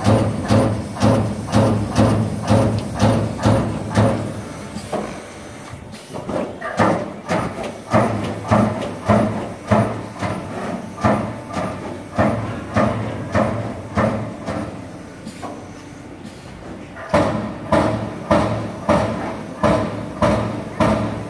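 Hydraulic CNC turret punch press (Accurl MAX-SF, 30-ton) punching sheet metal in a fast, even run of strikes, about two to three a second, over a steady hum. The strikes pause briefly about five seconds in, and again for about two seconds near fifteen seconds, then start again.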